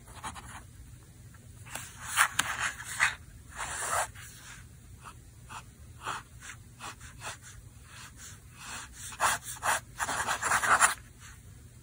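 Benu Talisman fountain pen's medium nib writing and hatching lines on Hobonichi grid paper: a series of short, light scratching strokes, with a quicker, louder run of strokes near the end. The nib can be heard on the paper and has some feedback, but it is smooth, not scratchy.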